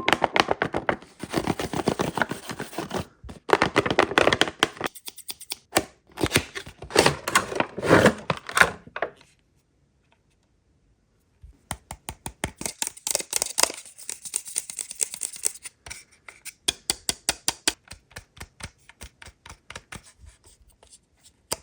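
Close-up scratching and rapid clicking from hands handling a toy and its packaging, in bursts; it stops for about two seconds partway through, then goes on as a steadier run of clicks.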